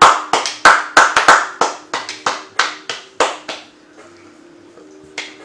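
A person clapping hands quickly, nearly four sharp claps a second, stopping about three and a half seconds in, with one more clap near the end.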